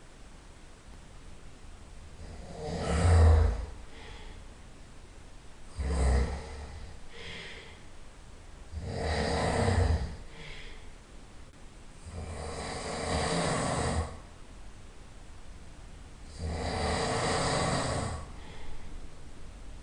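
A person snoring loudly, with five snores about three to four seconds apart. Some snores are short, and others are drawn out for nearly two seconds. Quieter breathing sounds come between them.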